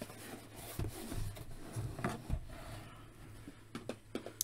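Soft handling noises, a few light knocks and scuffs, as a boxed toy is picked up and moved about, over a low steady hum.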